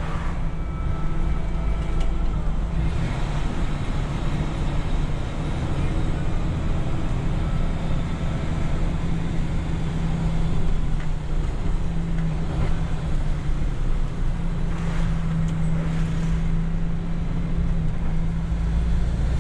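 MAN lorry's diesel engine and road noise heard from inside the cab while driving, a steady low drone whose engine note changes a few times as the truck pulls along.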